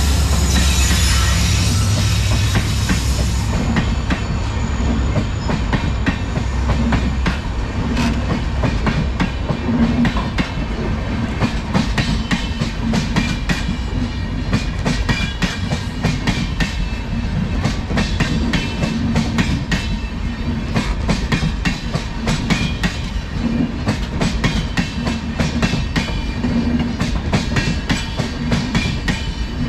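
Express train passenger coaches rolling past, their wheels clicking over rail joints in a rapid, uneven clickety-clack over a steady rumble. In the first few seconds the WDP4D diesel locomotive's engine drone fades away as the locomotive moves off.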